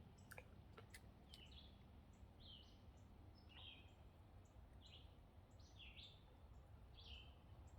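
Faint bird chirping: short, repeated chirps about one or two a second over a low background rumble, with a few faint clicks near the start.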